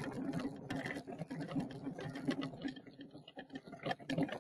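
Irregular knocking and rustling handling noise from a laptop being carried while walking, with footsteps.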